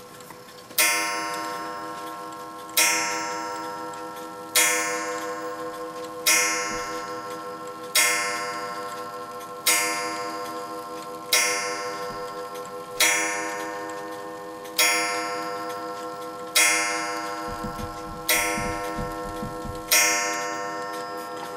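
German free-swinger wall clock movement striking twelve on its coiled wire gong: twelve strokes about one and three-quarter seconds apart, each ringing with several tones and dying away before the next.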